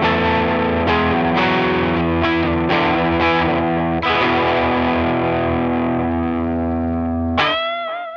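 SQOE SETL980 Telecaster-style electric guitar played with an overdriven tone. Picked notes and chords ring out, a chord is held from about halfway, and near the end a bent note is shaken with vibrato.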